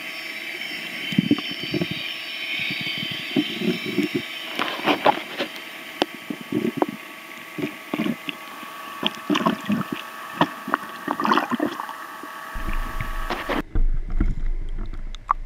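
A boat's motor heard underwater: a steady whine of several tones, with irregular knocks and clicks from the water and the camera housing. The whine cuts off near the end and a low rumble takes over.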